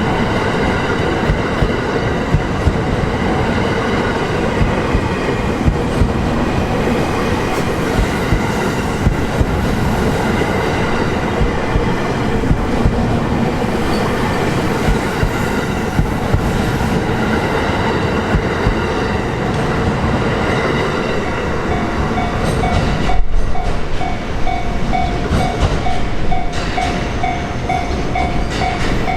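A long freight train rolling through a level crossing, its wheels clacking in a regular beat over the rail joints. About 22 seconds in, the crossing's warning bell comes up clearly, dinging rapidly.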